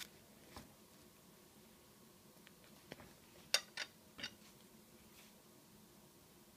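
A few light clicks and taps from small scissors and metal tweezers being handled and set down, the loudest a quick cluster of three about three and a half to four seconds in.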